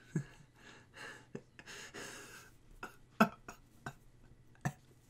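Quiet stretch close to a microphone with a few short, sharp clicks, the loudest about three seconds in, and a couple of soft breaths.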